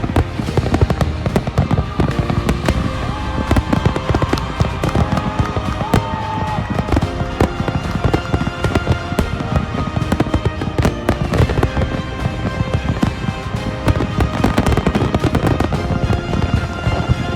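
Fireworks bursting and crackling in rapid, dense succession, with music playing along with them.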